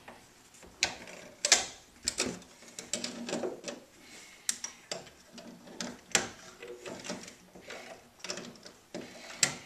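Pliers twisting steel wire tight around screw heads: irregular metallic clicks and scrapes, about a dozen sharp ones, with quieter rubbing in between.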